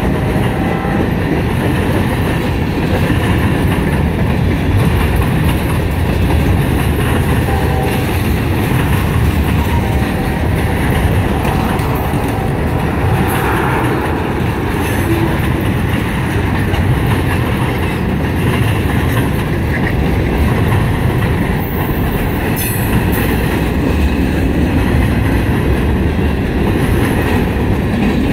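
Freight train cars, tank cars and covered hoppers, rolling past close by: a steady rumble of steel wheels on the rails.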